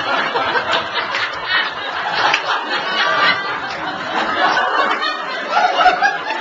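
Small comedy-club audience laughing, rising and falling.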